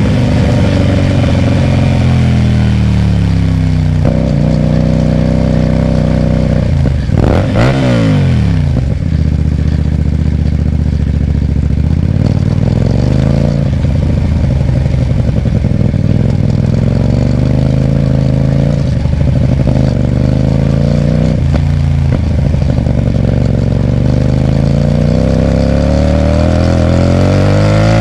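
Hyosung GT250R's 250 cc V-twin through a loud aftermarket Ixxile racing exhaust, its pitch climbing and dropping repeatedly as the bike is ridden through the revs. There is a sharp rev up and down about seven seconds in, and another climb near the end.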